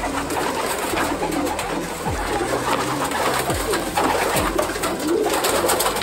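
Domestic racing pigeons cooing in their loft, several birds calling over one another.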